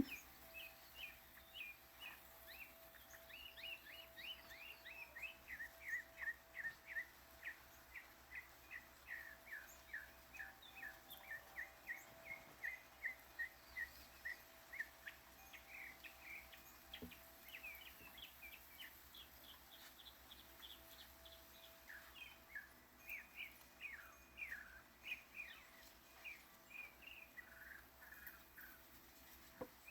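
Backyard songbirds chirping: a long run of short falling chirps, two or three a second, then more varied chirps in the second half. A faint steady hum lies underneath.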